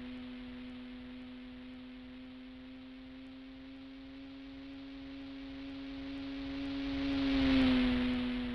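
Radio-controlled model plane's motor and propeller droning on a steady pitch, growing louder as the plane passes close near the end, the pitch dropping slightly as it goes by.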